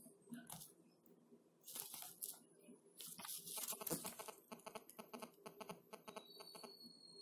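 Faint paper rustling and handling as the pages of a textbook are leafed through: scattered soft rustles and clicks, with a quick run of small ticks about halfway through.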